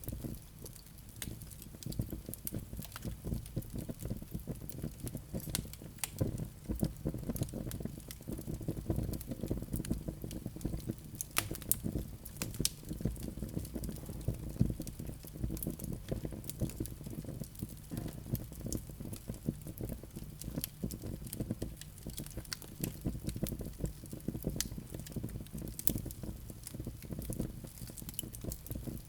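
Wood fire crackling and popping: many irregular sharp pops and snaps over a low steady rumble of burning.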